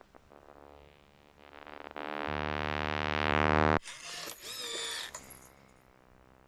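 A shaman's vocal noises: a deep, steady drone full of overtones that swells louder and cuts off abruptly, followed by a brief wavering high-pitched warble.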